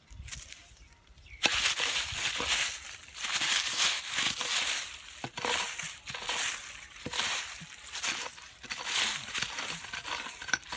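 A knife blade scraping and digging into dry, dusty soil and leaf litter in repeated rough strokes, starting about a second and a half in.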